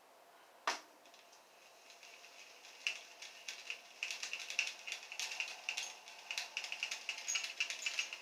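Freshly greased Zebco spincast reel being worked by hand. One sharp click comes about a second in. From about three seconds on there is a fast, uneven run of light clicks from the reel's mechanism, which stops abruptly near the end.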